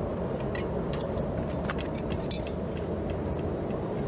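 Steady roar of a forge running, with a scatter of light metallic clicks and taps in the first half.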